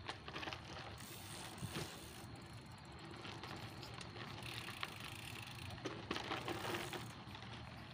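Mountain bike rolling over a rough, rocky dirt trail: a steady rushing noise of tyres on the ground, with scattered rattles and knocks as the bike jolts over bumps.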